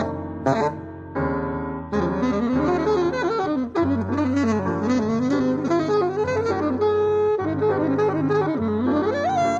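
Live jazz saxophone and piano duet: the saxophone plays a winding improvised line that rises and falls, over held piano chords re-struck every second or few. A live concert recording transferred from cassette tape.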